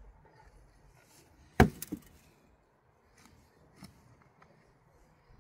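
Shovel working a heap of manure and straw: one sharp knock about one and a half seconds in, a smaller one just after it, and a faint knock about two seconds later.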